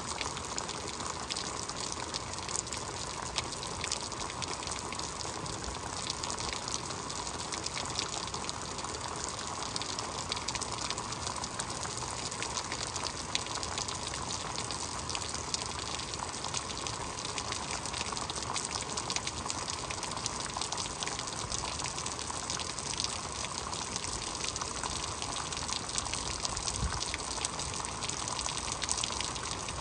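Heavy rain falling steadily, a dense patter of countless drop hits.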